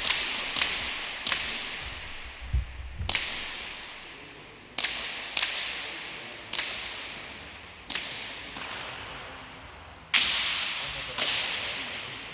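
Basque hand-pelota ball smacking off the players' hands, the walls and the floor of a frontón: about ten sharp cracks at uneven gaps of one to two seconds, each ringing out in the court's echo. The loudest comes about ten seconds in.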